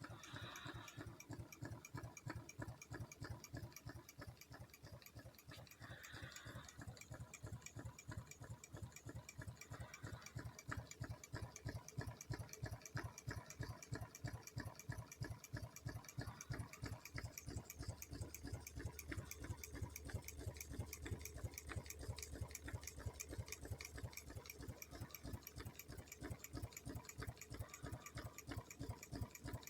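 Clatter of hooves: a fast, even run of sharp knocks, several a second, that keeps going without a break.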